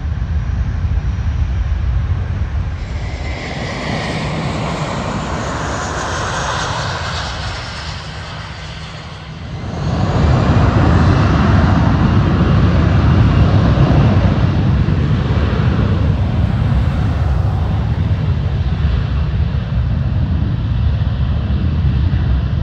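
Jet aircraft passing close by on the airport runway, its engine noise dipping briefly and then growing louder and fuller about ten seconds in.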